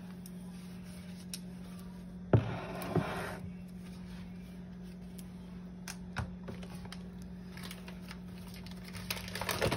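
A bowl being handled and wiped dry: a sharp knock about two seconds in, followed by a second of rubbing and another knock, then scattered light clicks and taps near the end. A steady low hum runs underneath.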